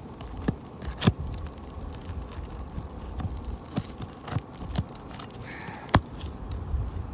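Irregular sharp clicks and knocks of a roofer's hand tools working at asphalt roof shingles to pull out nails and free a damaged shingle, two louder knocks about a second in and near the end, over a low rumble.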